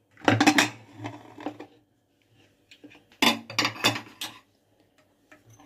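Aluminium pressure cooker lid being unlocked and lifted off: metal clanks and clinks in two clusters, near the start and again about three seconds in.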